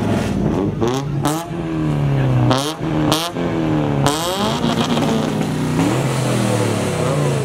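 A vehicle engine being revved in several quick blips, its pitch sweeping up and dropping back each time, with a few sharp cracks in between. It settles to a steadier running note near the end.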